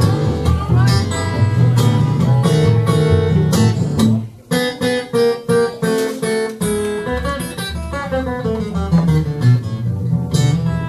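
Acoustic guitars playing an instrumental Delta blues passage: strummed chords, a brief break about four seconds in, then a run of single picked notes stepping down in pitch before the strumming returns.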